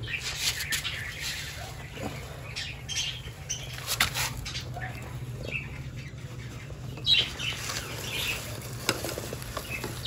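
Intermittent rustling and scraping as an Indian spectacled cobra slides into a pipe that leads to a cloth bag, with a few sharp clicks. A steady low hum runs underneath.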